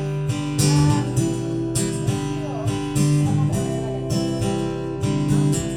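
Acoustic guitar strumming chords steadily in an instrumental passage of a song.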